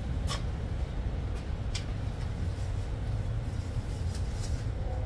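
Steady low background rumble, with a few faint light clicks and the rustle of disposable plastic gloves being pulled on near the end.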